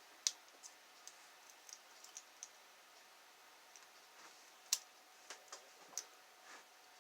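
Lock pick and tension tool working the pins of a pin-tumbler lock, here an American lock core with serrated pins. Faint, irregular metallic clicks and ticks, with a few sharper ones near the start and again about two-thirds of the way in.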